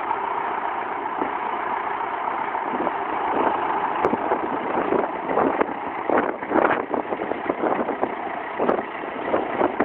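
John Deere tractor with a front loader, its diesel engine running steadily. From about three seconds in, uneven bursts of noise break over the engine sound.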